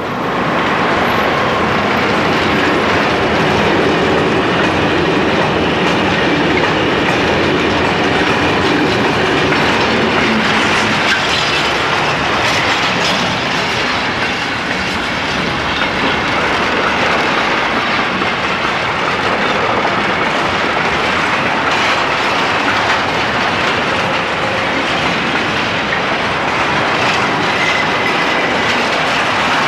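Long freight train passing close at speed behind an electric locomotive: a loud, steady rumble and rattle of the wagons, with the wheels clicking over the rails.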